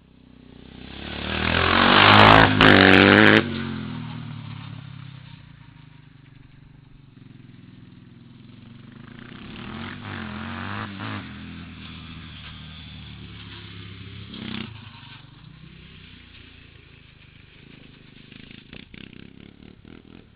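Yamaha Warrior ATV's single-cylinder four-stroke engine breathing through an FMF PowerCore 4 exhaust, revved hard and loud about two seconds in, then dropping away and fading. It swells with throttle again around ten seconds and briefly near fourteen seconds.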